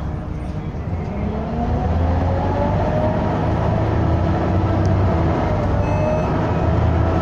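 Volvo B7TL double-decker bus's diesel engine pulling away under load, heard from inside the bus: the engine note grows louder and rises in pitch, drops back with a gear change partway through, then rises again.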